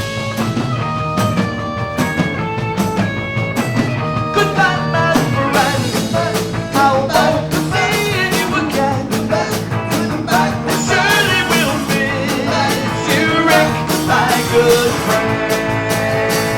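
Rock band playing live in rehearsal: electric guitar, bass and drums, with a lead melody line that bends in pitch through the middle.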